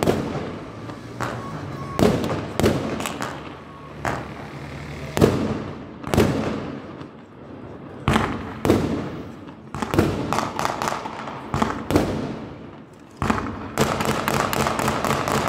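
Aerial fireworks going off: a run of sharp bangs about one a second, turning into dense rapid crackling near the end.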